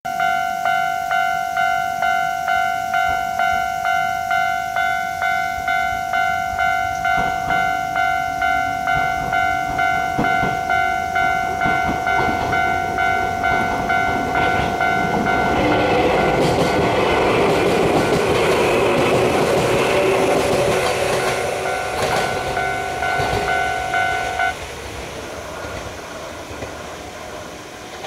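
A Japanese level-crossing warning bell rings steadily, about two strikes a second. From about halfway through, a passing Izu Kyuko line train grows loud, its wheels clicking over the rail joints. The bell stops near the end while the train noise carries on, quieter.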